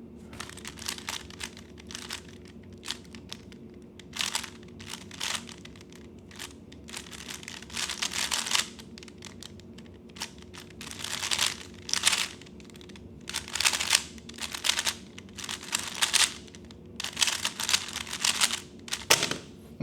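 3x3 Rubik's-type speedcube being turned fast during a timed solve: quick runs of plastic clicking and clacking from the layer turns, with short pauses between them, busier and louder in the second half. A faint steady hum lies underneath.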